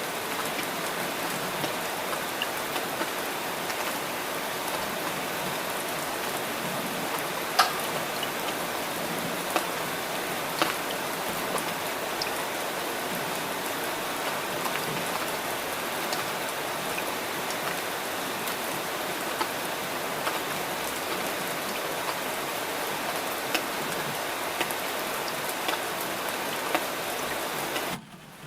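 Steady rain falling, with the sharp ticks of individual drops scattered through it and a couple of louder drop hits about 8 and 11 seconds in. Near the end the sound cuts out abruptly, then swells back in.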